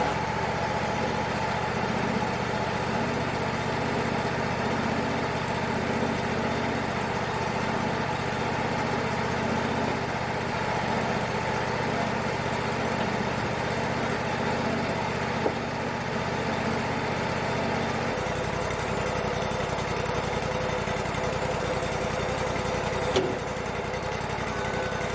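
Wood-Mizer LT-35 portable sawmill's engine running steadily, its low hum changing about three-quarters of the way through, with two brief knocks.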